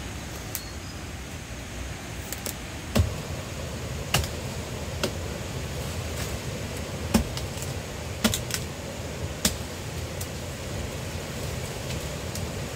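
Scattered sharp knocks and clicks of wood being worked by hand, about nine at irregular intervals, the loudest about three seconds in, over a steady low rushing background noise.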